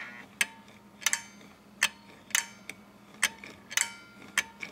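Contactor in an RV AC-to-DC converter clicking over and over, about one and a half clicks a second, each click with a short metallic ring, as the converter is fed from a variac. A faint steady low hum runs underneath.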